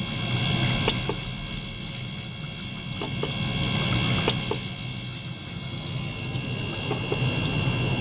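Small liquid-circulation pump running with a steady low hum while water streams from a tube into an ultrasonic cleaner tank, bubbling with scattered small clicks and splashes. A steady high-pitched whine and hiss from the running ultrasonic equipment sits over it.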